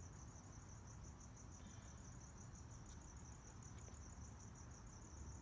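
A cricket chirping: a faint, steady, high-pitched trill of rapid, even pulses.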